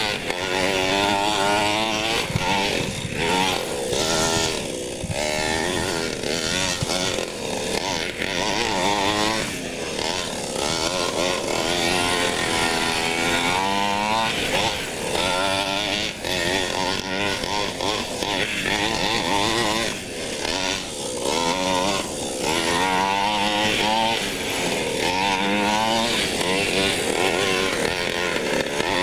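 Small two-stroke gasoline engine of a 1/5-scale Primal RC monster truck, revving up and down over and over as the truck is driven hard, its pitch rising and falling every second or two.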